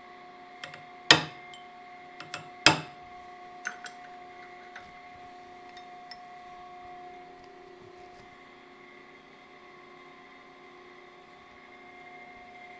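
Two sharp hammer blows on a steel punch set against a camshaft, about a second and a half apart, peening the bent shaft to take out its run-out, followed by a few lighter metallic clicks. A steady machine hum runs underneath.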